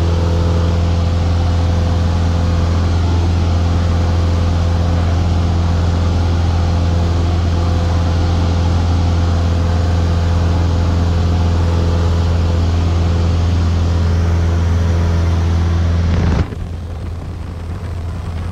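Light aircraft's engine and propeller drone heard inside the cabin: a loud, steady low hum with a rushing noise over it. About sixteen seconds in, the sound suddenly becomes quieter and duller.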